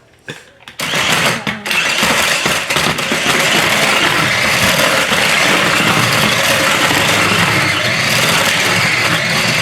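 Slide Glider 360 remote-control stunt car's small electric motors whirring steadily with a dense clatter as it spins, starting after a brief quiet moment near the start.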